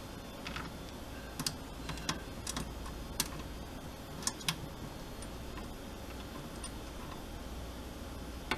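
A small screw with a plastic washer being handled and fitted into a metal equipment panel: a scattering of light, sharp clicks and ticks, most in the first half and one more near the end, over a steady low hum.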